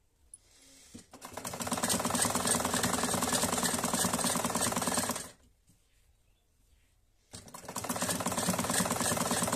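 Black Modern-brand sewing machine stitching a cotton kurti's side seam: two runs of rapid needle clatter. The first builds up speed about a second in and stops about five seconds in; the second starts about two seconds later.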